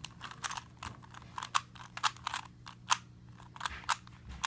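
Plastic Rubik's Cube layers being turned quickly by hand, giving irregular sharp clicks and clacks, about three a second, as the last layer is solved.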